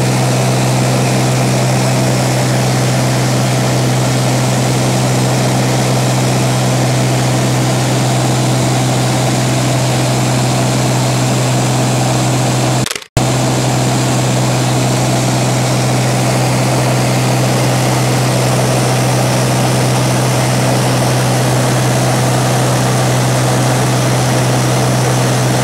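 Seaplane's propeller engine droning steadily in climbing flight, heard from inside the cabin. The sound cuts out for a split second about halfway through.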